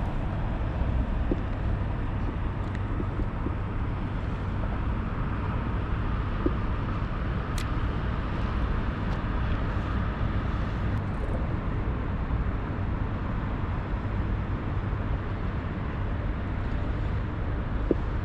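Steady low rumbling outdoor background noise, with a single faint sharp click about seven and a half seconds in.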